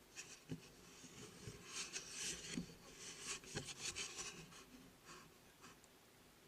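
Faint, irregular scraping and rubbing, with three soft knocks, busiest in the middle and dying away before the end.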